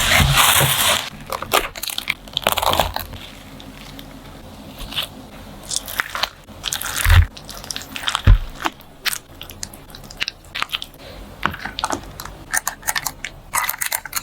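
Crisp food crunching in a series of irregular, sharp crunches and clicks.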